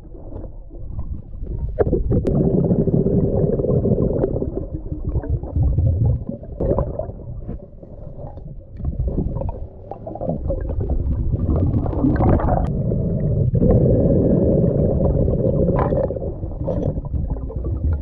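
Underwater sound picked up by a camera in its housing: a muffled, swelling rumble and gurgle of moving water, with a few sharp knocks.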